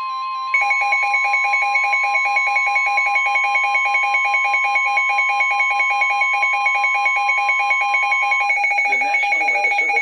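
NOAA Weather Radio warning alarm tone, a steady high tone of about 1050 Hz, signalling that a warning is about to be read. About half a second in, a rapid pulsing two-pitch alarm beep joins it, likely the receiving weather radio's own alert. The steady tone stops about 8.5 seconds in while the beeping goes on, and the synthesized announcer voice starts beneath it near the end.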